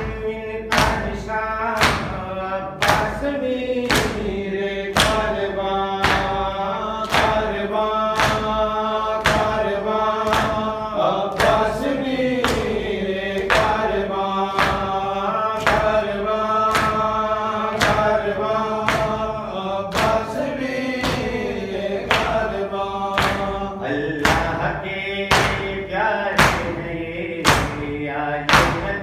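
A man chanting a noha (mourning lament) over a microphone and loudspeaker, other voices joining in. Mourners beat their chests in matam, loud sharp slaps in a steady rhythm of about one and a half a second.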